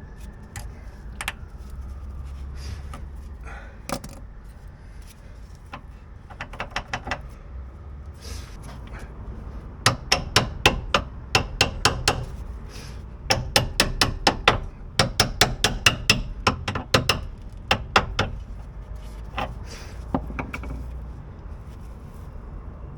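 Hammer blows on metal, coming in quick bursts of several ringing strikes with short pauses between them.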